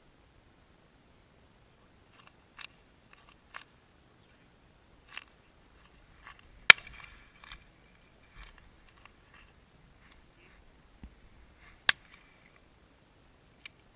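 Shotgun shots at driven partridges: two loud, sharp reports about five seconds apart, with several fainter cracks around them.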